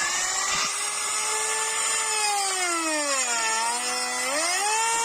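Electric router cutting a wide groove in the wooden meeting rail of a sash window, its motor whining at high speed. Near the middle the whine drops in pitch for about a second as the cutter takes the load, then rises back to speed.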